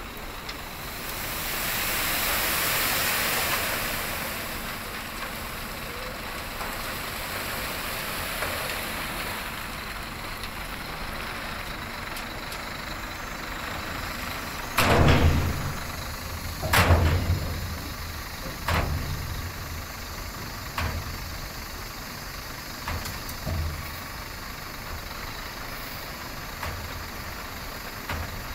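Dump truck tipping a load of sand and gravel: a rushing hiss as the load slides out of the raised body, then two loud metallic bangs about halfway through and a few weaker knocks every couple of seconds after, from the tipper body and its swinging tailgate, over the truck's running engine.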